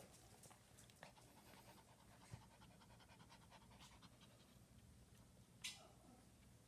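A small dog panting faintly, with one short hissing noise about five and a half seconds in.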